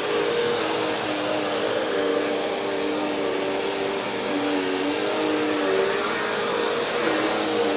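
Vacuum cleaner running steadily while being used for vacuuming, its motor tone stepping up and down a little.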